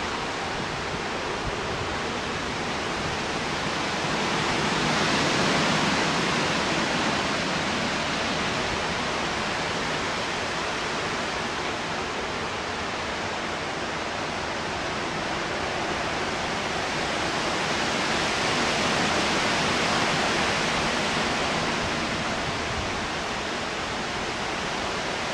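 Severe thunderstorm wind and rain rushing through large trees, a steady dense roar of noise that swells twice in strength.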